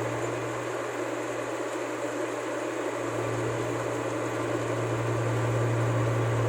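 Rice combine harvester's diesel engine and threshing machinery running steadily: a strong low hum with a constant mechanical noise over it, the hum easing slightly about a second in and strengthening again about halfway through.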